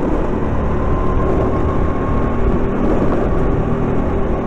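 Go-kart running on track, a steady drone without sharp revving changes.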